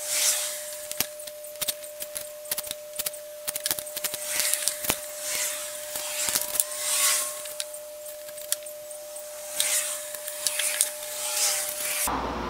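Pencil scratching layout lines on wood in several short strokes, with clicks and taps as a rule or square and the wooden pieces are handled and set down. A faint steady hum runs under it and stops near the end.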